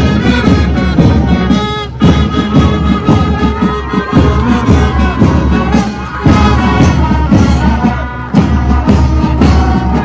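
Brass marching band playing: trumpets, trombones, saxophones and a tuba over bass drums, loud and continuous.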